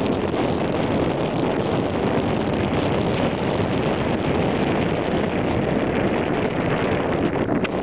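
Wind blowing across the camera microphone: a loud, steady rush of noise, heaviest in the low range, with no engine tone in it.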